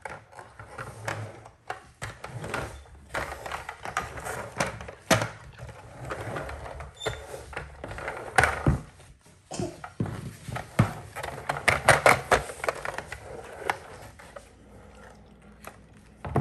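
Hard plastic toy car handled and pushed about on a wooden tabletop: irregular clicks, knocks and rattles as its parts are worked, dying down near the end.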